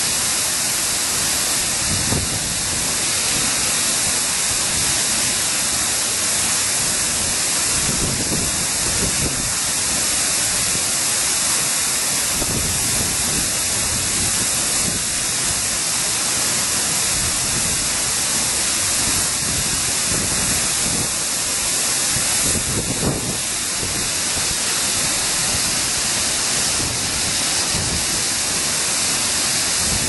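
A 70 m waterfall falling into its plunge pool: a loud, steady rush of water, heavy in hiss, with no breaks.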